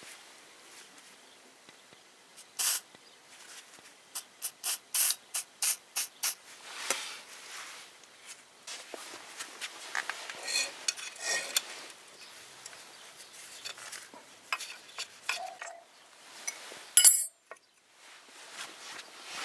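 Workshop handling and rubbing noises. There is a short loud burst, then a run of about seven quick strokes at roughly three a second, then scattered scraping and clinking and another short loud burst near the end.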